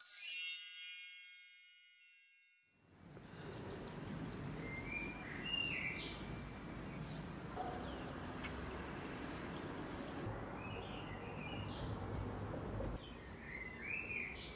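A bright chime rings out and fades over about two seconds. After a brief silence, steady outdoor background noise comes in, with short bird chirps every few seconds.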